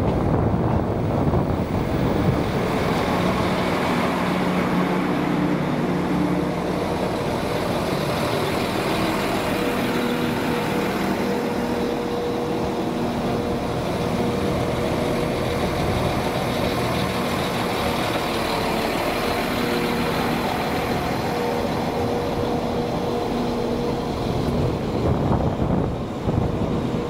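A train running through the station: a loud, steady rumble with a low hum whose pitch steps up partway through.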